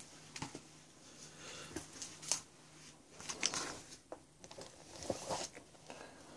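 Comic books in plastic sleeves being handled and swapped: the bags crinkle and rustle, with a few light taps as the books are moved and set down.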